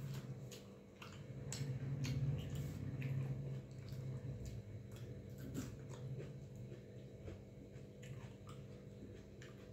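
Eating by hand: water-soaked rice (panta bhat) squished and mixed with the fingers on a steel plate, with chewing and scattered small clicks.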